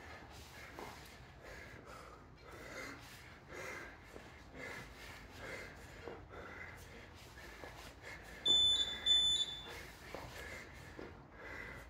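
Hard, rhythmic breathing of a man working through a long set of kettlebell snatches, a forceful breath about every second. About eight and a half seconds in, an electronic beeper sounds two short, high beeps less than a second apart, louder than the breathing.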